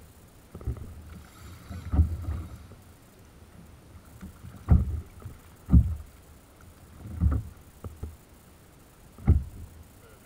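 Waves slapping against a plastic fishing kayak's hull in rough swell: a series of irregular low thumps, five or so, one to three seconds apart, over a low wind rumble on the microphone.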